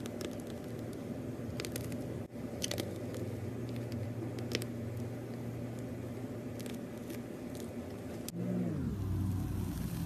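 Foamy slime made with shaving foam crackling and clicking in scattered small pops as it is handled. Under it runs a steady low hum that drops in pitch about eight seconds in.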